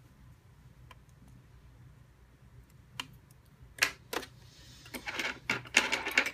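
Thread ends being trimmed close to a seam in cotton fabric. Two sharp clicks come about four seconds in, then a quick run of crisp snips and fabric rustling near the end.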